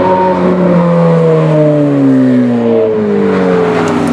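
Loud supercar engine driving past, its note falling steadily in pitch over about four seconds.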